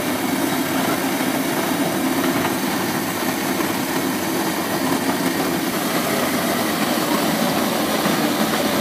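Re-Rice home rice milling machine running with a steady motor hum.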